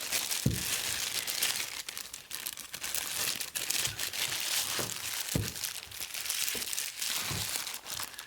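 Plastic bag crinkling and rustling as a multimeter is handled and unwrapped from it, with a few soft low thumps.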